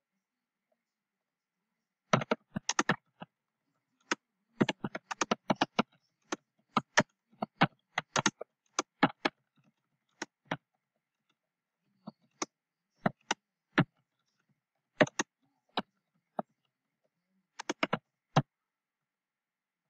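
Typing on a computer keyboard: separate sharp keystrokes in quick irregular runs, starting about two seconds in, growing sparser in the second half with pauses of a second or more.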